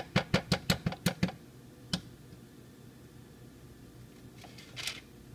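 Metal spoon tapping, with about eight quick taps in the first second and a half, then one more tap and a short rustle near the end.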